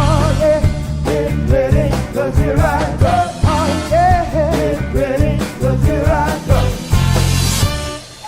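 Soul band with singers performing an upbeat Motown song, with wavering sung lines over a driving bass beat. The song ends about eight seconds in.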